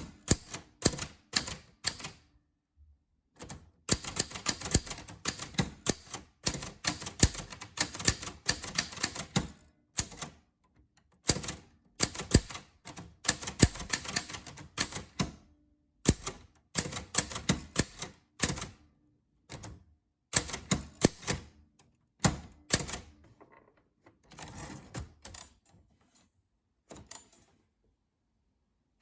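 Typewriter being typed on, its keys striking in quick runs of clicks broken by short pauses. The clicks thin out to fainter, scattered strikes in the last few seconds.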